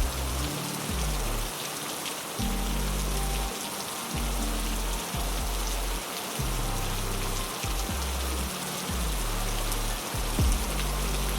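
Heavy rain falling steadily, with low held bass notes of background music changing every second or so underneath, and a few sharp low knocks.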